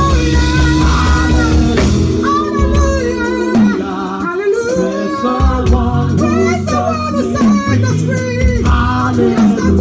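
Live worship music: singing over a band, with a drum kit played close by, its drum and cymbal hits sharp and dense. The low notes drop away for about two seconds near the middle, then return.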